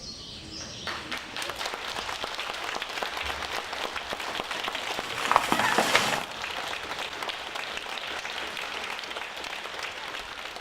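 Audience applauding: dense clapping that starts about a second in, swells briefly a little past halfway, then carries on steadily.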